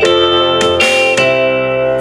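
Live band playing an instrumental passage: electric guitars, bass and keyboard holding sustained chords, with a couple of cymbal hits.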